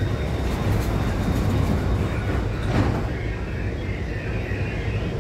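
Steady low hum inside an Alstom Movia R151 metro car standing at the platform, with a single knock about three seconds in as the car's sliding doors shut.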